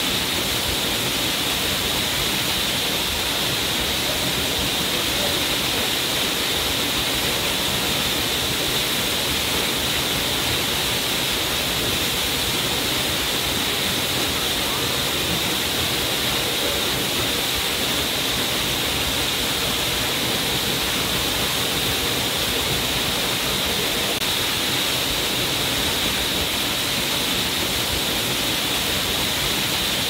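Waterfall pouring steadily: a constant, even rush of falling water that does not change.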